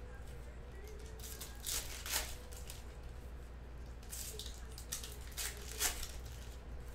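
Trading card packs and cards being handled, making a few short papery rustles and crinkles over a steady low hum.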